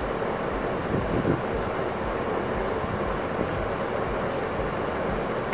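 Steady background rumble and hiss with a faint low pulsing, and a small knock about a second in.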